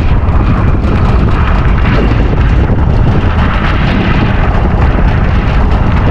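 Strong wind buffeting the microphone in a steady, loud rumble, with gusts that rise and fall.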